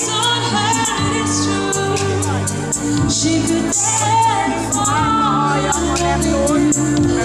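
A woman sings a pop song live into a handheld microphone over a pop backing track, with a steady beat and regular hi-hat strokes.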